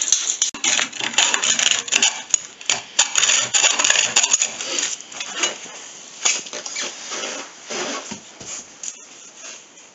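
Clinking and rattling of small hard objects being handled, a dense clatter for about the first five seconds that then thins out to scattered clicks.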